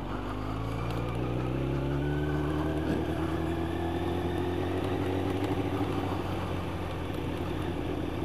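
Yamaha YZF 1000cc motorcycle's inline-four engine pulling under way, its pitch rising over the first two or three seconds and then holding nearly steady.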